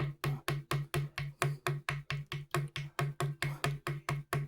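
Glued wooden cocktail stick being tapped down into an old screw hole in a maple guitar neck: rapid, even taps, about five a second, each with a low wooden knock.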